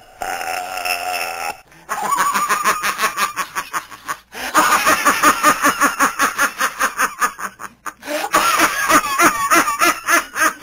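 A voice laughing in three long runs of quick, pulsed 'ha-ha-ha', with short breaks between them.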